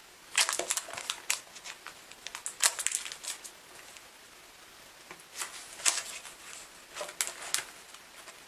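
A paperback book being set onto a stack of plastic-covered paperbacks and the stack squared up by hand: four short bursts of crinkly plastic rustling and light taps.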